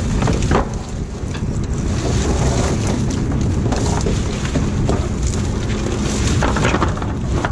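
Wind buffeting the microphone over a steady rush of boat and water noise.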